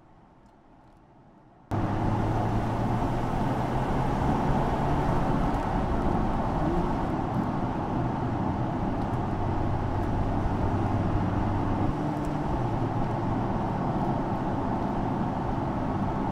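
Mercedes-AMG GLC 43's 3.0-litre V6 biturbo engine and tyres, the car driving at a steady pace on the road; the engine note holds low and even, shifting slightly in pitch a couple of times. It comes in suddenly about two seconds in and cuts off suddenly at the end.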